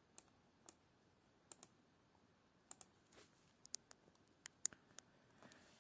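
Computer mouse clicking: about a dozen sharp, irregular clicks, some in quick pairs, the loudest a little past the middle.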